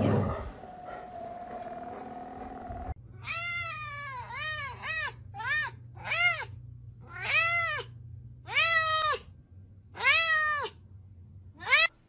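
A long-haired cat meowing over and over, about nine meows starting about three seconds in. Each meow rises and then falls in pitch, some short and some drawn out.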